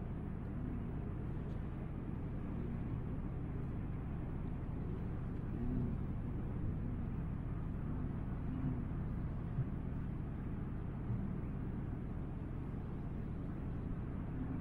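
Steady low engine rumble outdoors, with a few faint wavering sounds over it.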